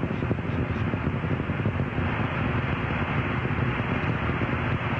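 Space Shuttle Columbia's rocket exhaust (two solid rocket boosters and three main engines) during ascent: a steady, dense rumble.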